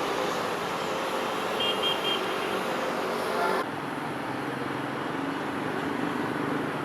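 Steady city traffic noise with a few short high toots about two seconds in. The higher hiss cuts out suddenly about halfway through.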